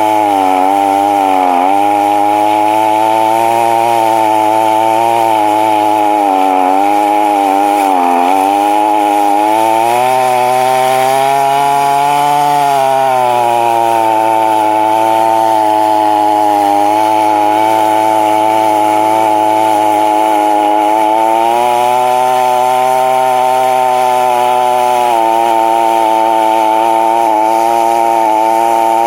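Two-stroke chainsaw running at high throttle while cutting into a tree trunk. The engine pitch sags and recovers as the chain loads up in the wood, dipping near the start and again at about eight seconds, then rising for a moment at about twelve seconds.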